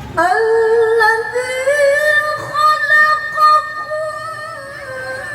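A reciter chanting Qur'an verses in melodic tilawah style. One long, ornamented phrase starts just after the beginning, climbs slowly in pitch over the first couple of seconds and is held, then fades near the end.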